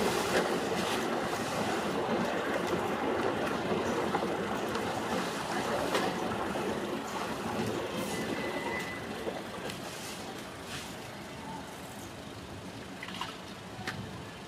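Outdoor plaza ambience made mostly of a portable generator's steady mechanical running, with a faint high steady tone above it. Scattered light clicks and knocks come from tent-dismantling work. The broad noise is heavier through the first half and eases off after that.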